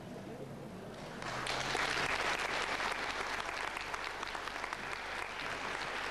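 Audience applauding. The clapping breaks out about a second in, just after the demonstrators bow, and carries on as a steady patter of many hands.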